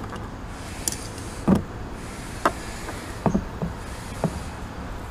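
Half a dozen light metallic clicks and knocks as steel steering-box parts are handled and set against the cast-iron housing, over a steady low background hum.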